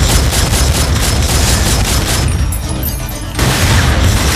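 Rapid volleys of film-soundtrack pistol gunfire over a loud music score and a heavy low rumble; the shots ease off for about a second past the middle, then start again.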